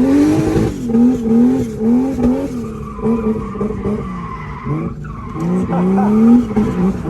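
A car drifting: the engine revs up and down over and over, with tyre squeal.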